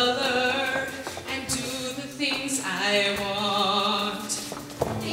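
Female soloist singing into a handheld microphone over music, holding long notes in the second half.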